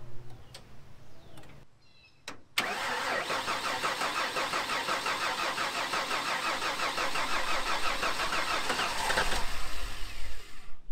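A click about two and a half seconds in, then a Ford F-150's 4.9-litre (300 cu in) straight-six cranking on the starter with an even, rapid pulse for about seven seconds, the engine catching and running near the end. This is its first start after a head gasket replacement.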